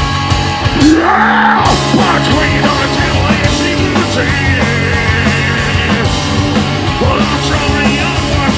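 Live metal band playing loud in a club: bass guitar, electric guitar and drums, with a vocalist yelling and singing into a microphone. A sliding note rises about a second in.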